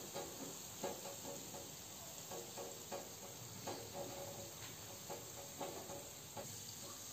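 Oil sizzling around gulab jamun dough balls deep-frying in a pan: a soft steady hiss with irregular small crackles and pops.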